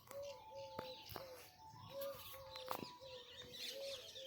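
Birds calling: one bird repeats a short hooting note about twice a second while other birds chirp and twitter higher up, with a couple of sharp clicks.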